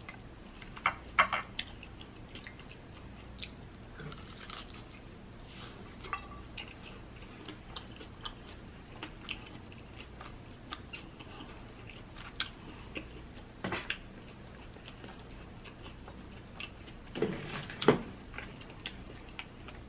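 Chewing and biting into a crisp-fried birria taco, with scattered crunches and a louder run of bites near the end.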